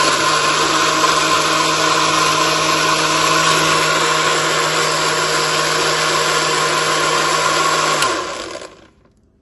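Countertop blender motor running steadily at high speed, whirring through a liquid mix of banana and kinnow juice. About eight seconds in it is switched off and spins down quickly.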